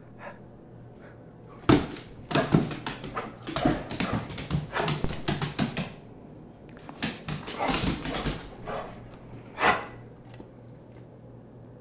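Excited dog vocalizing in bursts of barks and whines: a sharp bark about two seconds in, a run of rapid whining yowls to about six seconds, another run around seven to nine seconds, and a single loud bark near the end.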